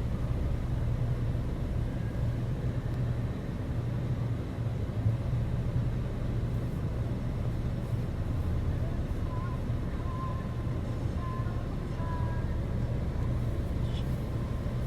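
Steady low rumble of a motor vehicle, like a car engine running with road or traffic noise, with faint wavering thin tones in the second half.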